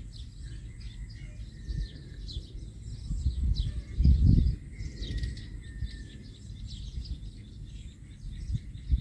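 Many small birds chirping in quick, scattered calls over an irregular low rumble. The rumble swells loudly for about half a second around four seconds in.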